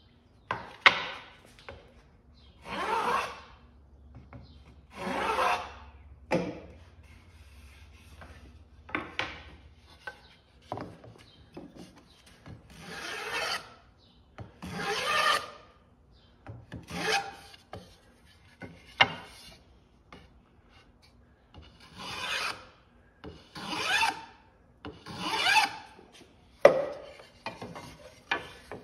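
A small hand plane, a block plane, is being pushed along the edge of a wooden floor slat in repeated strokes, each a short rasping shave. There are about a dozen strokes, one every second or two.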